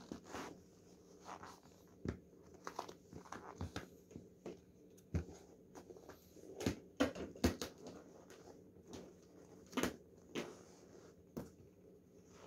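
Irregular rustling and light knocks as Air Jordan 13 sneakers are pulled onto the feet and set down on a wooden floor, the loudest taps a little past halfway and again about four-fifths through.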